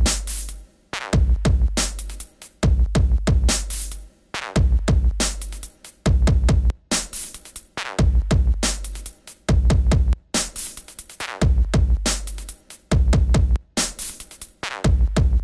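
Background electronic music with a steady drum-machine beat and deep bass.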